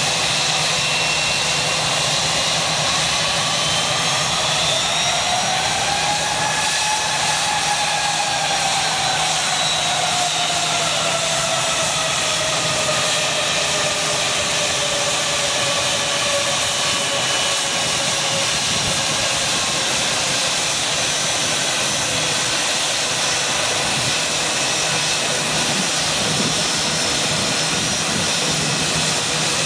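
Airbus A321 jet engines whining steadily at taxi power. Their whistling tones rise in pitch a few seconds in, then sink slowly over the next dozen seconds as the airliner swings past.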